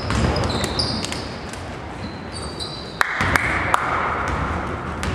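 Basketball game in play: sneakers squeak sharply on the court floor and the ball bounces, with a few sharp knocks just after three seconds in.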